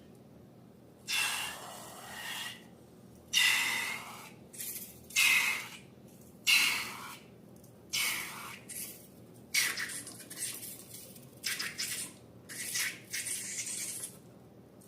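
A series of about ten short hissing, squelching bursts, each well under a second, as filled balloons are squeezed and emptied for slime-making.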